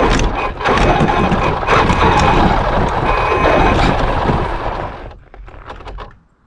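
Traxxas X-Maxx RC truck driving forward under throttle: the electric motor and drivetrain give a faint steady whine under the loud scraping and crunching of the plow blade and studded tyres through packed snow. It starts abruptly and dies away about five seconds in as the truck stops, with a few last clicks.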